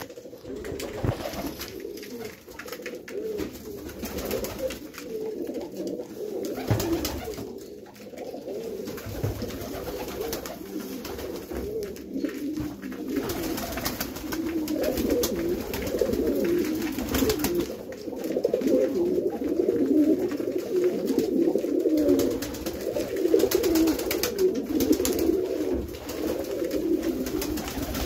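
A flock of domestic pigeons cooing together in a dense, overlapping chorus that grows louder about halfway through, with scattered clicks and wing flaps as the birds crowd in to feed.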